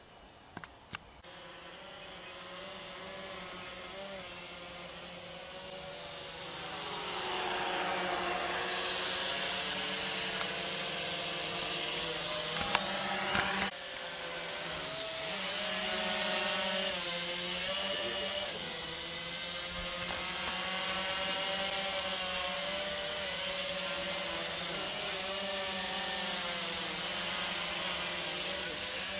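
Quadcopter drone's electric motors and propellers whining. The pitch keeps wavering with the throttle, and the sound grows louder over the first several seconds before holding steady. There are two sharp clicks about a second in.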